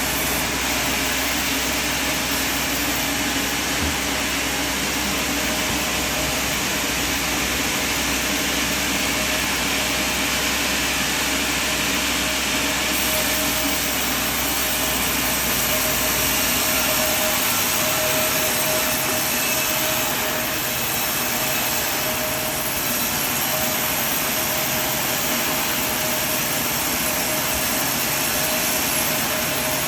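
Sawmill running steadily: a continuous loud machine rush with a steady tone in it. The deep low rumble drops away about halfway through.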